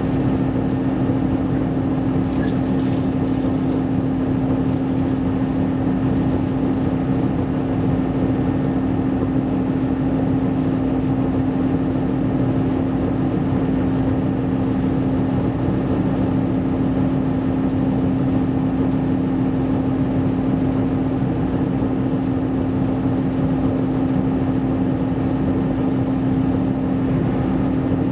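Running noise inside a KiHa 127 series diesel railcar at a steady pace: a constant hum of the diesel engine and wheels on the rails, with one strong steady tone that holds the same pitch throughout.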